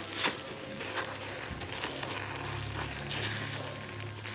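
A plastic spoon stirring thick, lumpy liquid-soap paste in a crock pot: soft squishing and scraping, with a short louder scrape just after the start.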